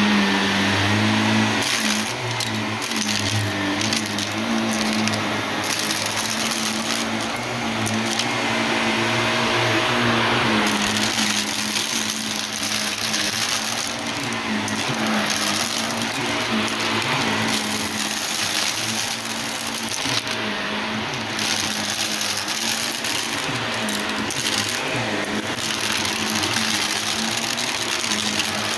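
Shark Navigator Lift-Away Deluxe upright vacuum running over a rug and sucking up aquarium gravel, the small stones rattling and crackling through the machine. The motor's steady hum gives way to a dense, irregular rattle about two seconds in.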